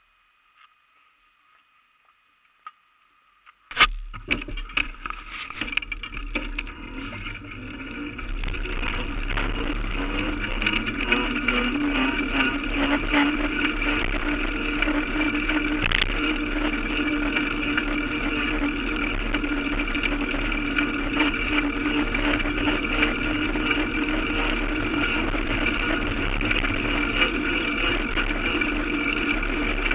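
Near silence for the first few seconds, then a vehicle's engine and road noise start suddenly, heard from the moving vehicle. The engine's pitch rises as it picks up speed and then settles into a steady drone.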